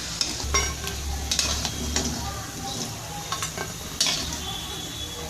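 Fish roe fritters in gram-flour batter sizzling steadily in hot oil, with a utensil knocking and scraping against the pan several times as they are stirred.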